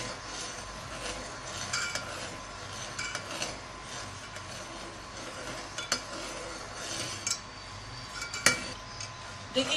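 Metal spoon stirring and scraping thickening milk in a metal pot, with a few short clinks of spoon against the pot over a steady low hiss. This is milk being reduced down to khoya (mawa).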